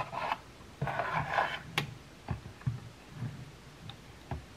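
Handling sounds of a small plastic batter measuring cup and a bowl of waffle batter: a few short clicks and knocks with a brief rustle about a second in.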